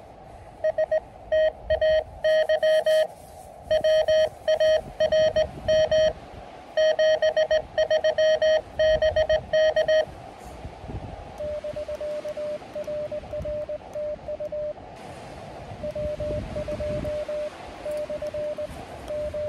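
Morse code (CW) from an Elecraft KX2 transceiver: a single high tone keyed on and off in dots and dashes, loud and clean for about the first ten seconds. After that a quieter keyed tone of the same pitch comes over a steady hiss of band noise.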